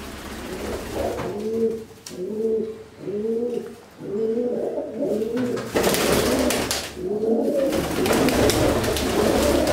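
Domestic pigeons cooing: a run of repeated low coos, each rising and falling in pitch. A little past halfway a loud rustling, rushing noise comes in under the coos and stays.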